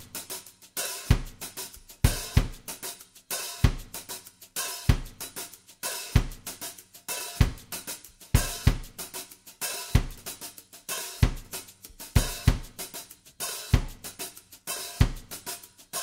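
Background music: a steady drum-kit beat, with a kick drum about every 1.2 seconds and snare and hi-hat hits between.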